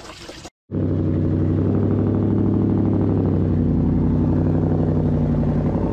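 A Ford Mustang Boss 302's 5.0 V8 idling steadily and evenly through its dual exhaust. It starts abruptly after a split-second silent cut near the start.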